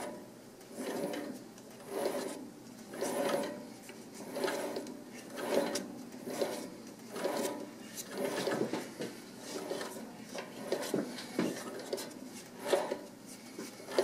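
Lathe threading tool cutting an internal thread in brass as the spindle is turned by hand: a series of short rasping scrapes, about one to two a second.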